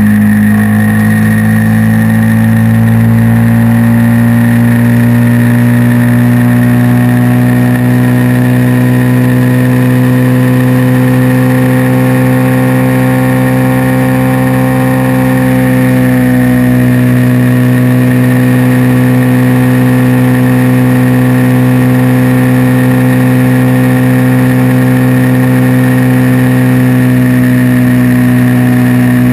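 Suzuki VX800 V-twin engine cruising at a steady motorway speed, heard close through a bike-mounted camera, its pitch easing slightly about halfway through. A steady high-pitched whine sits above the engine note, one the rider cannot hear on the bike.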